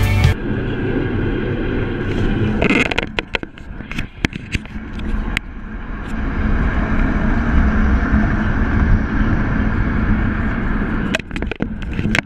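Car driving on a highway: a steady low rumble of road and wind noise, with scattered clicks and knocks, a cluster of them about three to five seconds in and another near the end.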